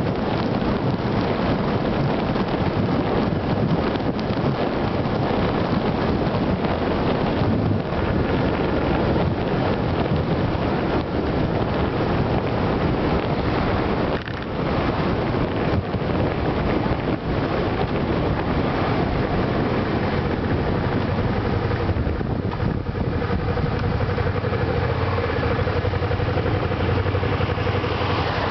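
Riding on a Suzuki Gladius 400 V-twin motorcycle, with heavy wind rushing over the microphone of a camera mounted above the windscreen and the engine running beneath it. In the last third, the engine's steady tone comes through more clearly.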